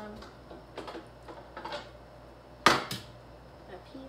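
Small knocks and clatter of things being handled and set down on a kitchen counter, with a sharp knock about two and a half seconds in and a second one just after.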